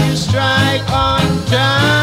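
Background music: a song with a bass line that changes every half second or so, and a held melody line over it.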